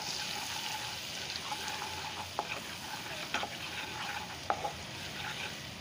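Melted butter sizzling in a nonstick pan as red chilli powder is stirred into it with a spatula, with a few sharp taps and scrapes of the spatula against the pan.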